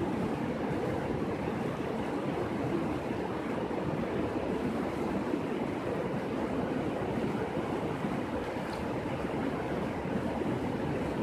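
Shallow mountain river rushing over a wide bed of stones, a steady, unbroken sound of flowing water.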